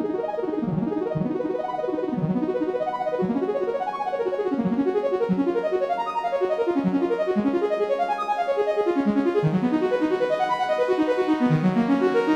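Intro music played on piano or keyboard, a run of quick notes that grows slightly louder and fuller toward the end.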